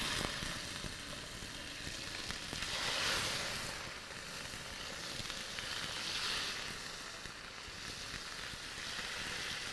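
Salmon fillets sizzling in hot olive oil in a frying pan as they are laid in one after another to sear. The sizzle swells twice, about three and six seconds in.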